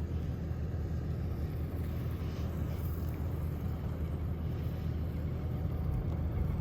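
Vehicle driving through deep beach sand, heard from inside the cabin: a steady low engine and tyre rumble.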